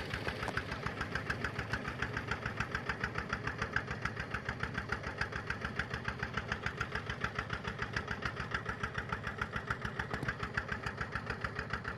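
Single-cylinder diesel engine running steadily at low speed, a regular knocking beat of about five strokes a second.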